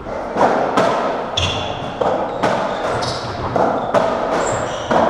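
Racketball rally on a squash court: about eight sharp ball strikes off rackets and walls, each with an echoing tail, with short high squeaks of court shoes on the wooden floor between them.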